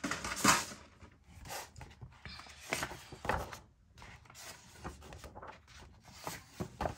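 Pages of a paper colouring book being turned and smoothed flat by hand: a few brief paper rustles and swishes, the loudest about half a second in, with soft handling noise between.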